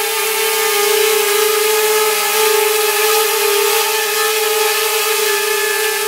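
Xiaomi MiTu mini quadcopter hovering in place, its four small motors and propellers giving a steady high-pitched whine with an airy hiss.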